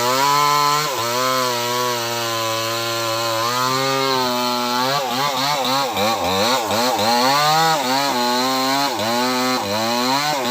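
Small chainsaw running in a cut through a large tree trunk. Its engine note holds fairly steady at first, then from about halfway it rises and dips rapidly over and over.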